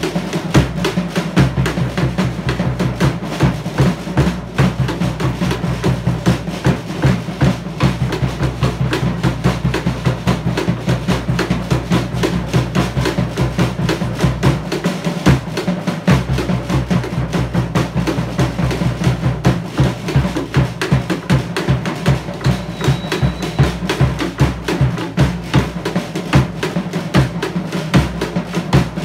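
Live Polynesian drum ensemble playing a fast, driving dance beat: rapid, steady strikes over a deep bass drum.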